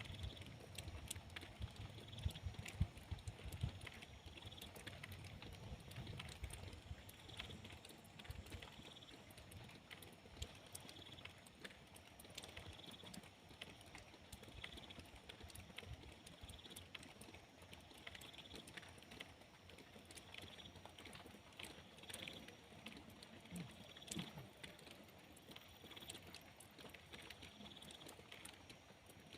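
Light rain falling, with scattered drops ticking and pattering. A faint high note repeats every second or two, and a low rumble sits under the first several seconds.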